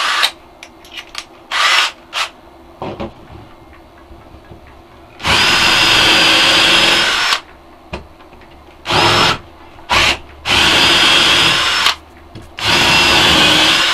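Einhell TE-CD 18 Li cordless drill driver drilling holes into a block of wood. A few short trigger blips come first, then three runs of a second and a half to two seconds each, with brief bursts between them, the motor whining steadily under load.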